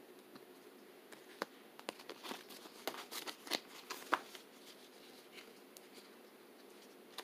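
Faint crinkling and small clicks of paper planner stickers being peeled and handled with metal tweezers, a cluster of ticks from about one to four and a half seconds in.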